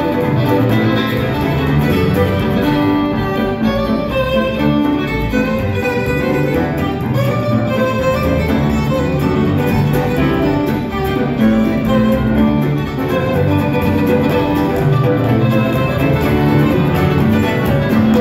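Live fiddle music: a fiddle plays the lead over a band of mandolin, acoustic guitar, upright bass and piano.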